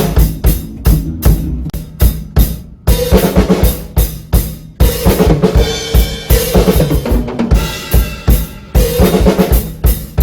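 Drum kit playing a steady rock beat with kick and snare, over a sustained bass line: a band jamming.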